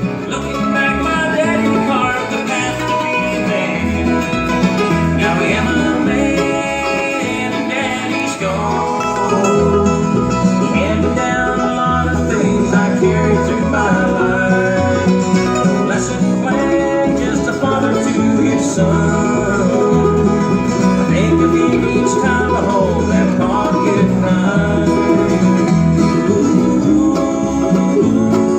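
Bluegrass band playing an instrumental break, with banjo and guitar picking over a steady, stepping bass line.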